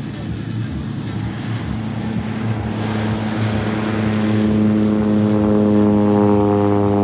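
Propeller airplane engine running steadily, growing louder as it comes nearer.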